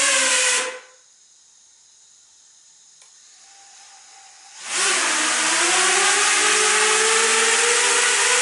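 Quadcopter's brushless motors whining at high throttle, then cut back almost to silence. About four and a half seconds in they are throttled back up, the whine rising steeply in pitch, then holding steady at high throttle.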